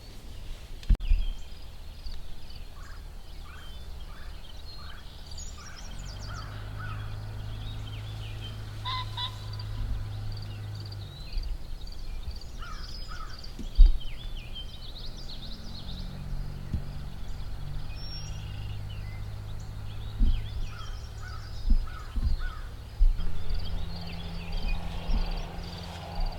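Wild turkey gobbling amid many small songbirds chirping and trilling. Two sharp knocks stand out, one about a second in and a louder one midway.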